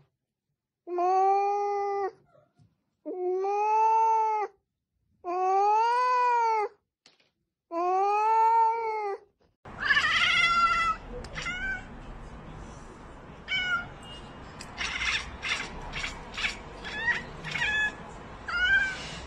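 A cat gives four long, drawn-out meows, each rising and then falling in pitch. Then a black cat chatters at a window: short chirping calls and a fast run of sharp clicks, over a steady background hiss.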